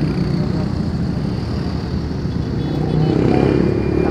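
Road traffic: car and motorcycle engines running in slow street traffic, a steady low rumble.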